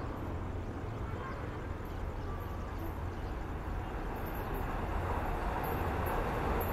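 Indian Railways WCAM3 electric locomotive and its passenger coaches approaching, a rumble of wheels on rail that grows steadily louder as the train nears.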